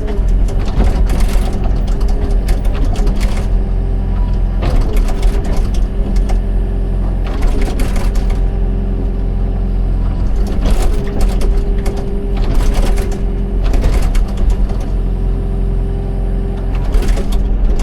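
Excavator's diesel engine running steadily with a hydraulic whine, overlaid by irregular metallic knocks and clatter.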